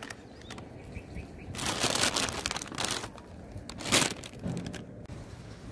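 Foil cracker packet crinkling and rustling as bijili crackers are pulled out of it, with one short sharp knock about four seconds in.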